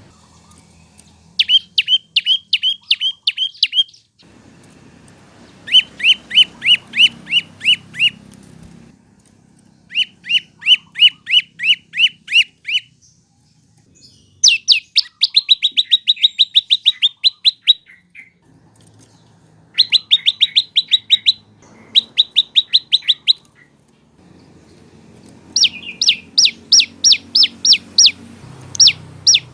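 Prenjak lumut (lancur) singing loudly: phrases of quick, sharp, repeated chirps, each phrase of roughly seven to fifteen notes lasting two to three seconds, with short pauses between phrases.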